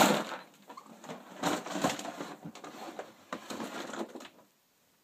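A thump as the phone is set down on a surface, then rustling and light clattering of things being handled, which stops about four seconds in.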